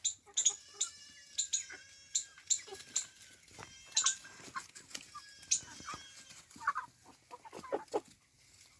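Chickens clucking, with many short, high-pitched peeping calls scattered throughout.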